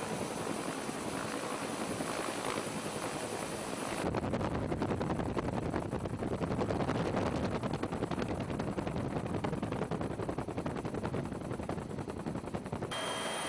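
Helicopter noise heard from aboard the aircraft: a steady rushing at first, then from about four seconds in a fast, even beating of the rotor blades that runs until shortly before the end.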